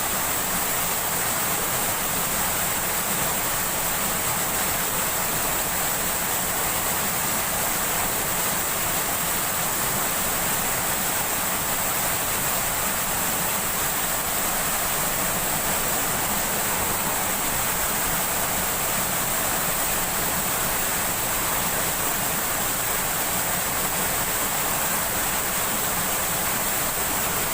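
Steady rushing of fast-flowing river water, an even roar with no breaks.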